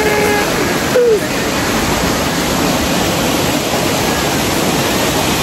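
Waterfall: a steady, loud rush of falling water, with a brief voice heard about a second in.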